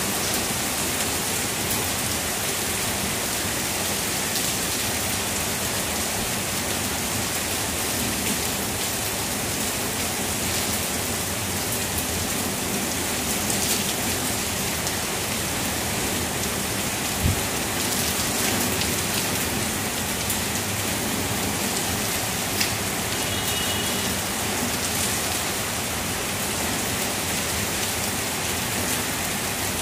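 Heavy rain falling steadily through tree foliage. A couple of brief, louder single knocks come a little past halfway.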